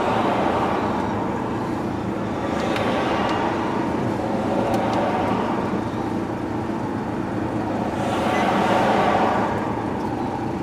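Steady road and engine noise heard from inside a moving car, swelling briefly about eight seconds in.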